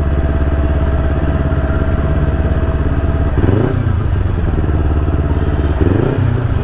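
Sport motorcycle engine running at low speed in slow town traffic, heard from the rider's seat. Its note rises and falls briefly twice, about halfway through and near the end.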